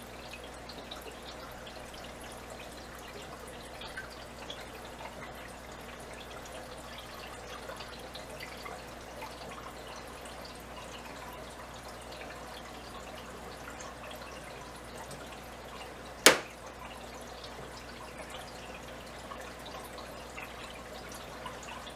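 Steady trickling and dripping of water in a home aquarium. A single sharp click about three-quarters of the way through.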